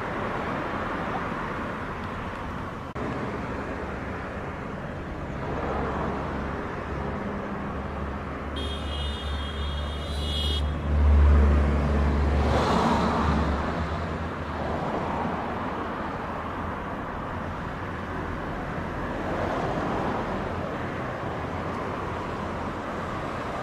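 Single-engine light aircraft taking off: a steady low engine drone over outdoor background noise, with the low rumble swelling loudest about eleven seconds in.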